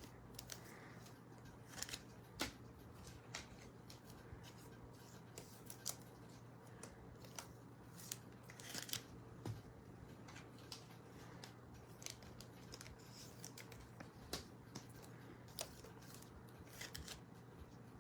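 Faint, scattered sharp clicks and snips of trading cards and foil packs being handled, over a low steady room hum.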